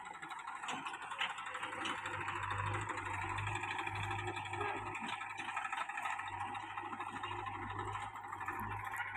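Massey Ferguson 1035 DI tractor's three-cylinder diesel engine running steadily as it drives past pulling a trolley, a constant low mechanical drone.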